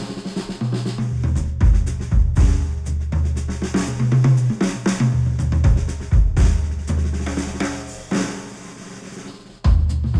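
Instrumental music with a drum kit (kick, snare, hi-hat) over a bass line, played back through headphones and picked up by microphones. Near the end the bass drops out and the beat thins, then the full beat comes back in sharply just before the end.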